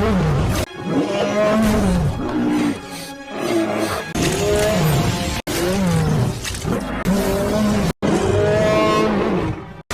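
Designed creature growls and roars mixed from big-cat and bear recordings, forming the Vulpimancer (Wildmutt) voice. They come as about four separate calls with sliding, falling pitch, each cut off abruptly.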